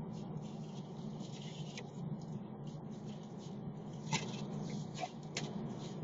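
Steady low road and engine noise heard inside the cabin of a moving car, with a few light clicks and scratches, the loudest about four seconds in.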